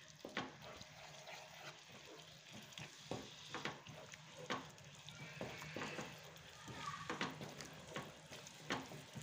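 A spatula stirring a thick tomato-onion masala in a frying pan: irregular light scrapes and taps against the pan, roughly one or two a second, over a faint steady sizzle of the simmering masala.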